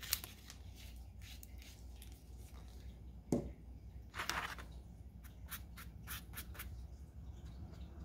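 Light handling of craft supplies on a tabletop: scattered small taps and clicks, a knock a little over three seconds in as a plastic paint bottle is set down, and a short rustle about a second later.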